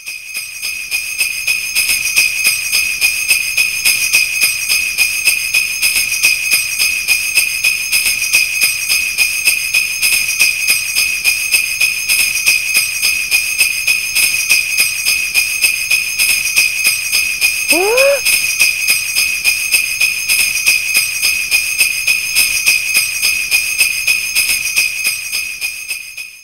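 Jingle bells shaken in a steady rhythm, about three shakes a second. About two-thirds of the way through, a short rising whistle-like swoop sounds over them.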